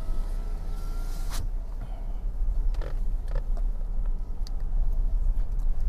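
Hyundai Venue moving slowly, heard from inside the cabin: a steady low engine and road rumble with a few light clicks and creaks.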